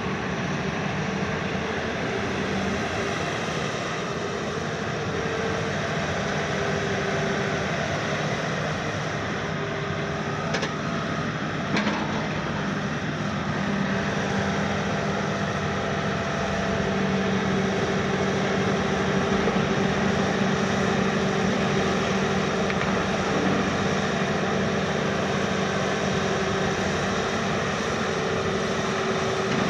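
Diesel engine and hydraulics of a Hitachi KMC 380 S-6 long-front demolition excavator running steadily while it slews and lifts its boom, a steady hum over the engine noise. A couple of sharp metal knocks come about ten and twelve seconds in.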